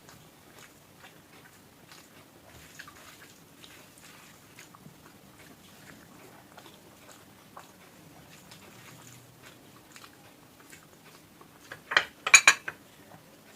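Someone eating a meal: faint chewing and small scattered clicks and ticks of food and plate. About twelve seconds in, a brief cluster of several loud, sharp clicks.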